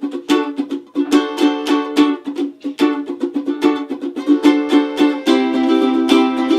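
Electric ukuleles strumming chords in a steady rhythm as the instrumental intro of a song. About five seconds in, the strumming becomes fuller and more continuous.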